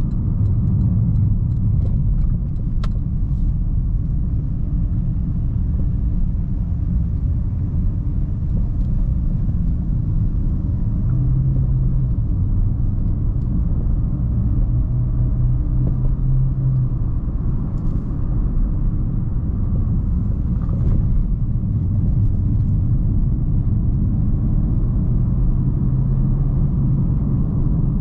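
2009 Porsche Panamera Turbo's 4.8-litre twin-turbo V8 and road noise while the car is driven at a steady pace: a continuous low rumble with no big revs.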